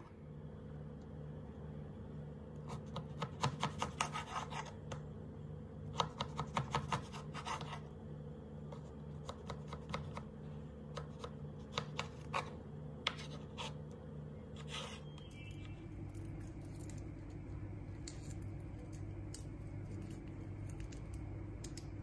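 Vegetables being cut on a wooden chopping board: quick runs of sharp cutting clicks in two bursts, then single cuts spaced apart. A steady low hum runs underneath and changes pitch about two thirds of the way through.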